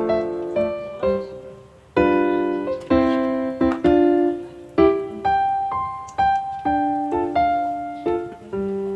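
Background piano music: struck notes and chords, each dying away before the next, at an unhurried pace.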